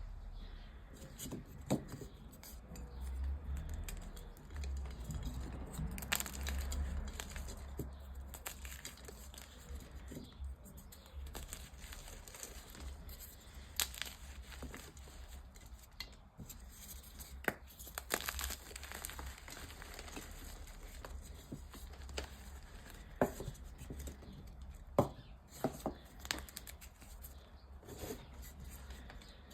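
Dyed gym chalk being crushed and crumbled by hand: a soft, powdery crackle broken by irregular sharp crunches as pieces snap.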